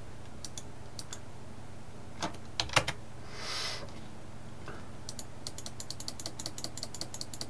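Clicking of a computer mouse and keyboard while a numeric setting in 3D software is stepped up: scattered single clicks at first, then a quick even run of about eight clicks a second near the end. A short soft rush of noise falls in the middle.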